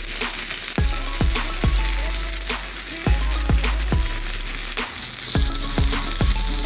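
Cheese-topped burger patties sizzling in bacon fat, a steady frying hiss, with background music carrying a regular bass beat.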